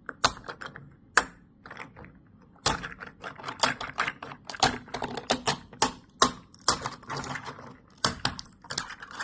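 3D-printed PLA articulated slug being peeled off a printer's build plate: a series of sharp clicks and crackles as the print's segments pop free, a few at first, then a dense crackling run from a few seconds in.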